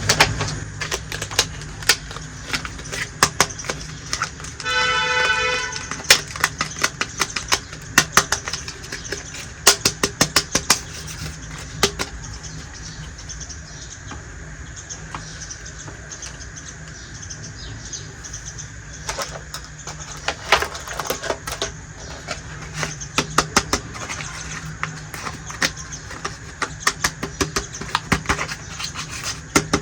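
Small plastic toy kitchen pieces clicking and tapping as they are handled and set down, in quick runs of sharp clicks, over a steady low hum. A short pitched tone sounds once, about five seconds in.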